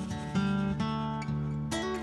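Background music: an acoustic guitar playing, with a new chord or note struck about every half second.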